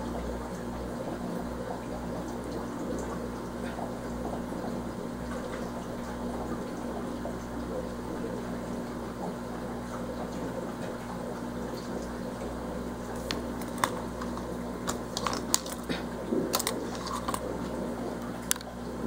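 Steady running and bubbling water from an aquarium's circulation, under a constant low hum. Several sharp clicks and taps come near the end.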